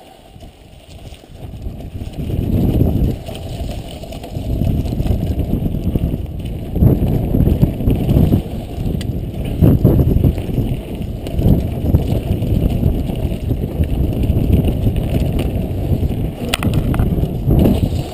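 Mountain bike descending a dirt trail: wind buffeting the camera microphone mixed with tyre and frame rumble, building over the first couple of seconds as speed picks up and then staying loud and uneven. A few sharp rattles come near the end.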